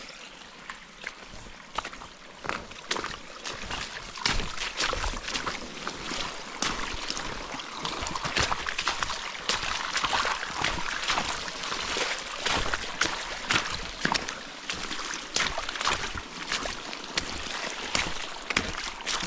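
Boots splashing through water running down a flooded trail, irregular sloshing steps over a steady rush of running water.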